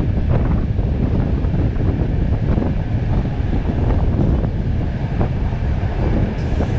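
Passenger train carriages running along the track, a steady low rumble with a few faint knocks. Wind buffets a microphone held out of the carriage window.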